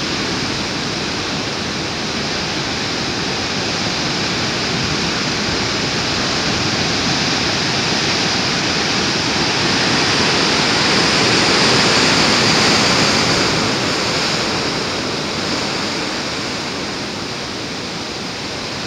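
Heavy ocean surf breaking and washing over a rocky shore, a continuous rushing roar of whitewater. It swells to its loudest about two-thirds of the way in as a big wave surges ashore, then eases.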